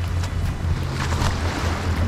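Small waves washing up on a sandy beach at the water's edge, with wind rumbling on the microphone; the wash swells a little about a second in.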